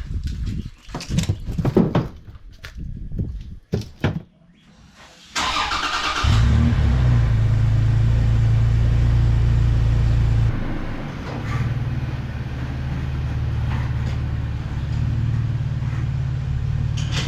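Some knocks and clicks, then a car engine starting about five seconds in and running steadily with a low hum that settles a little lower partway through.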